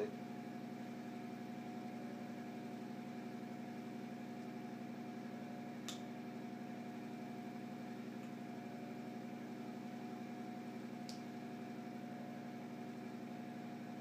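Steady machine hum with several fixed tones, like a fan or appliance running, and two light clicks from a hand wire tool on electrical wire, about six and eleven seconds in.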